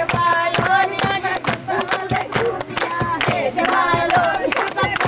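Voices singing a traditional Pakistani tappay folk song over a steady percussive beat of evenly spaced strokes, about two or three a second.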